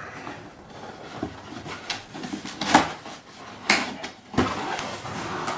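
Packaging being handled during an unboxing: rustling with several sharp knocks and clatters as parts are lifted out of the box.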